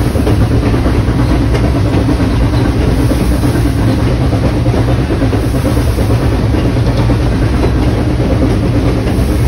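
Valley Railroad steam locomotive No. 3025, a 2-8-2, running along the track, heard close up at its front. There is a steady rumble and rattle of the wheels and running gear on the rails.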